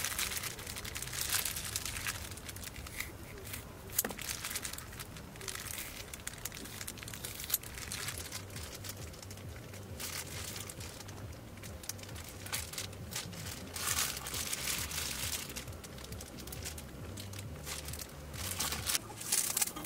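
Disposable plastic gloves crinkling as raw chicken thigh pieces are handled and threaded onto wooden skewers, in irregular rustles over a low steady hum.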